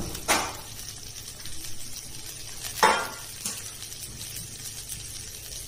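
Chopped okra tipped from a steel bowl into an aluminium kadai of hot oil, with two sharp metal clinks, one just after the start and one about three seconds in, over a faint frying sizzle and a low hum.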